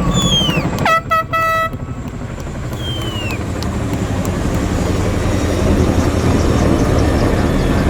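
An air horn sounds a short double blast about a second in over crowd noise, and a falling whistle follows. A steady rumble of approaching military helicopters, CH-47 Chinooks and AH-64 Apaches, then grows louder.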